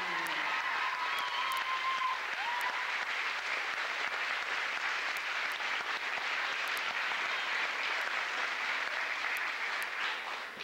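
Crowd applauding steadily, cutting off suddenly at the very end.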